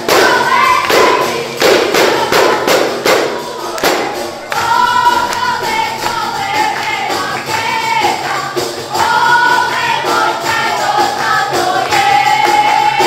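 Group of women singing together to the beat of def frame drums, a traditional Albanian wedding song. The drumming is heaviest in the first few seconds, and the sung melody carries the rest.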